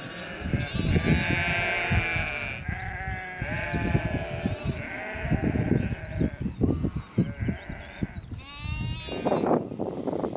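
Sheep and lambs bleating, several calls overlapping one after another, with a loud long bleat near the end.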